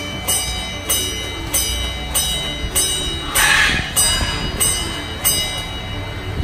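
A bell struck in a steady rhythm, about one and a half strikes a second, ringing at the same pitches each time, with a brief louder sound about halfway through.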